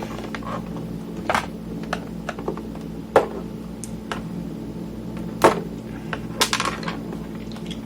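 Irregular sharp plastic clicks and taps as knobs are pried off the Tascam Portastudio 414 MKII's control shafts with a screwdriver. The loudest clicks come a second or two apart, over a steady low hum.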